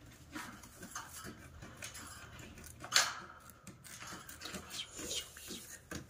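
A caged parrot gives one loud, sharp squawk about three seconds in, with a few shorter, fainter calls later, over small clicks and rustles.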